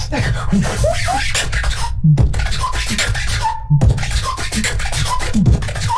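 Solo human beatboxing: deep falling bass drops about every second and a half, quick rising scratch-like glides, and short high held tones, broken twice by sudden cuts to silence.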